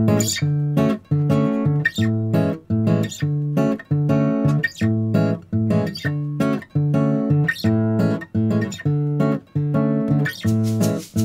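Background music: acoustic guitar playing plucked and strummed chords in a steady rhythm.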